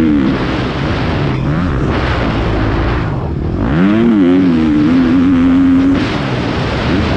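Motocross bike engine heard from on board, under a steady rushing noise: the engine pitch dips about 1.5 s in, climbs sharply as the throttle opens near 4 s, holds steady up the hill, then drops off as the throttle is shut about 6 s in, before rising again near the end.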